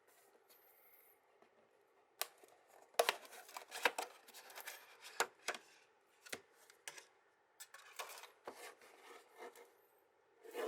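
Close-up handling of an earphone box and its contents: a string of sharp clicks and taps with rustling between them, starting about two seconds in and busiest soon after, with a last short rustle at the very end.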